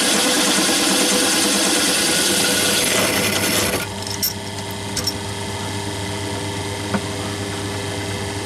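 Bench drill driving a 22 mm carbide-tipped hole saw through 5 mm angle iron with a loud, harsh grinding. A little under four seconds in it breaks through and the cutting stops, leaving the drill motor running steadily with a few light clicks.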